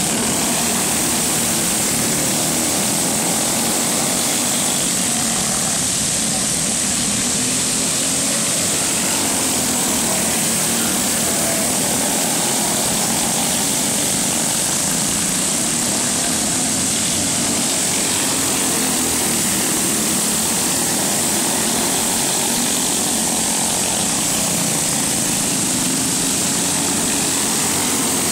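Several small go-kart engines running steadily as a pack of karts laps a dirt track and passes close by.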